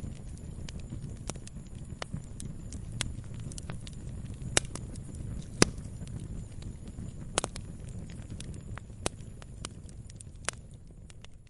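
Log fire burning: a low steady rumble with irregular crackles and sharp pops, the two loudest pops about halfway through. The sound fades out at the very end.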